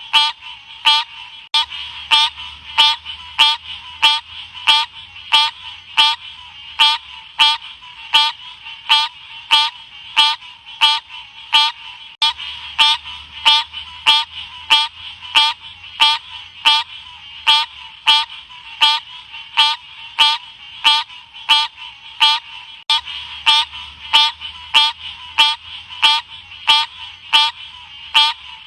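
Odorrana livida frog calling: short, sharp calls repeated in a steady, even series.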